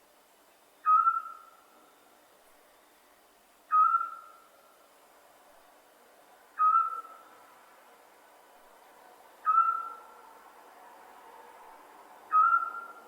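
Scops owl calling: a single short, clear whistled note repeated five times, about one every three seconds, each at the same pitch with a sharp start and a quick fade.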